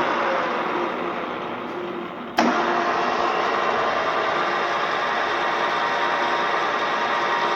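Kolb pillar drill's motor and geared spindle drive running down and fading, then a sudden click about two and a half seconds in, after which the drill runs steadily with an even mechanical hum of several steady tones.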